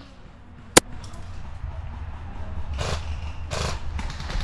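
A single sharp airsoft rifle shot about a second in, followed by two softer short hisses, over a low steady rumble.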